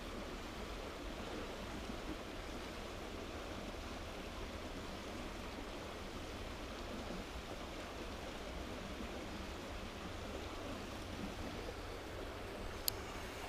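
Mountain stream rushing steadily, with one sharp click near the end.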